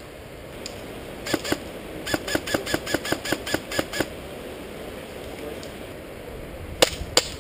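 Airsoft electric rifles firing: a quick string of about a dozen snapping shots, roughly five a second, then two louder single shots near the end.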